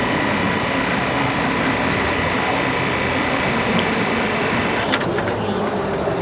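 Brother BAS programmable pattern sewing machine running steadily, its motor and needle drive giving a constant whine. About five seconds in the higher hiss drops away and a few sharp clicks are heard.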